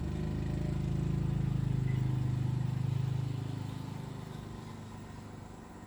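Electric fan motor humming while running, then fading away over the last couple of seconds.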